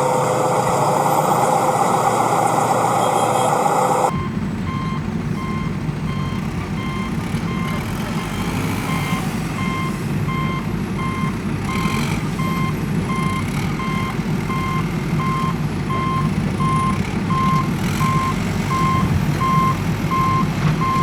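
Vehicle reversing alarm beeping about twice a second over a steady diesel-engine rumble of heavy construction machinery. A louder, higher-pitched hum runs over it for the first four seconds and cuts off suddenly.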